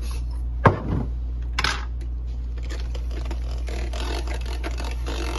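A sharp knock about a second in, then from about two seconds in a handheld electric frother whirring in a plastic cup of liquid, mixing a powdered tea drink.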